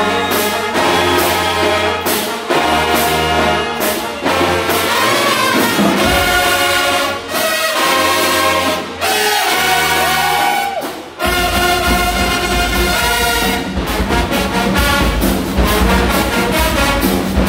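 High school marching band playing loud brass music: trumpets, trombones and sousaphones in sustained chords over regular drum and cymbal hits. About eleven seconds in the low bass fills in heavily.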